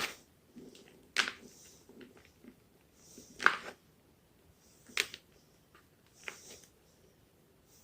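Homemade gym chalk being crunched: about five sharp, crackly crunches, one every one to two seconds, each followed by a few smaller crackles.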